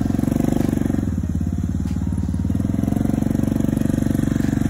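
An ATV engine running steadily while the quad is ridden across sand, heard up close from the rider's seat. Its note shifts slightly about a second in.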